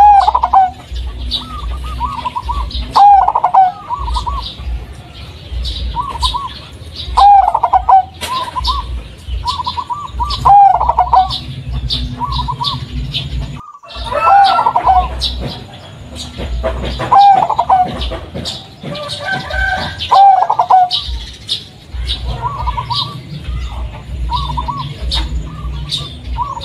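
Local Blorok Madu zebra dove (perkutut) cooing its song, a strong phrase every three to four seconds with softer notes in between, in a deep, mellow voice.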